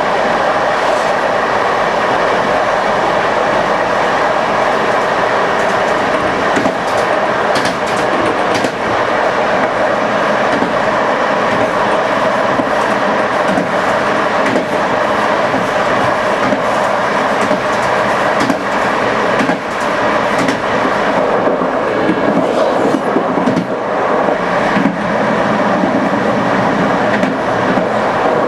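Passenger train running along the track with a steady rumble of wheels on rail. Scattered sharp clicks come from the wheels passing over rail joints, bunched about eight seconds in and again between about eighteen and twenty-five seconds in.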